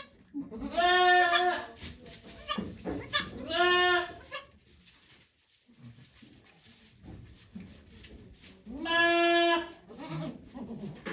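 Goat bleating: three long, steady-pitched calls, the second shorter than the others, with a gap of several seconds before the last.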